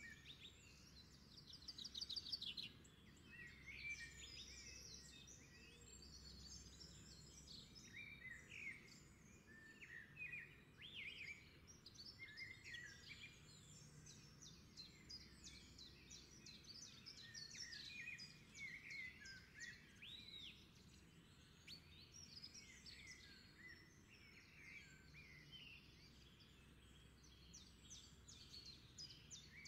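Faint chorus of songbirds: many short, overlapping chirps, trills and whistled notes continuing throughout, over a faint low background rumble.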